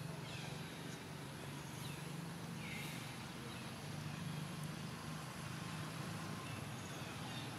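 A steady low motor hum throughout, with a few faint, short, falling high chirps and a brief hiss about three seconds in.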